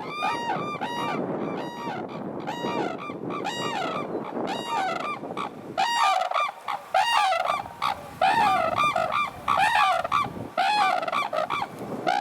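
A pair of red-crowned cranes calling together in their unison duet: loud, pitched trumpeting calls about two a second, coming thicker and overlapping from about halfway as both birds call. Wind rumbles on the microphone in the first half.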